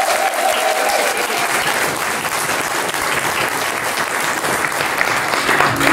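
Theatre audience applauding, a steady dense clapping.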